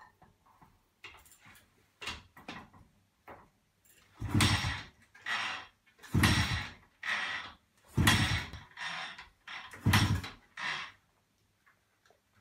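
Kick-starting a 1953 Husqvarna 230's 118 cc two-stroke engine: a few light knocks, then four hard kicks about two seconds apart. Each kick spins the engine briefly, and each is followed by a softer knock, but the engine does not run on.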